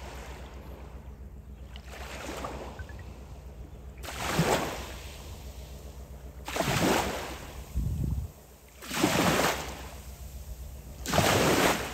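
Small waves washing onto a sandy beach, four swells of water noise roughly every two to two and a half seconds, over a steady low hum.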